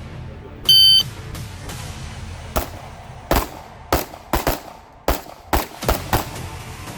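Shot timer's electronic start beep about a second in, then a string of about nine gunshots over the next few seconds, some in quick pairs.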